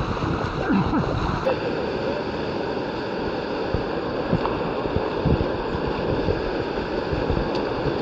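Steady rush of whitewater in a river course, with wind rumbling on the microphone.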